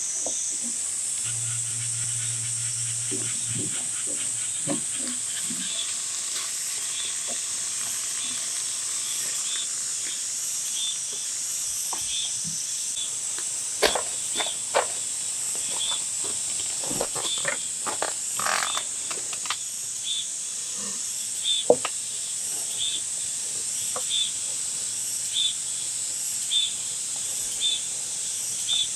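Soy-glazed chicken sizzling steadily in a nonstick frying pan, with scattered knocks and clinks of tongs and a plate on a wooden board midway, and soft regular ticks of the bubbling glaze late on.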